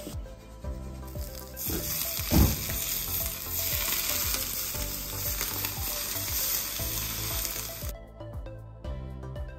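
Hot frying oil poured from a saucepan sizzling as it hits the tacos de canasta and their onions, a steady hiss that sets in about a second and a half in and cuts off suddenly near the end. A single thump comes about two and a half seconds in.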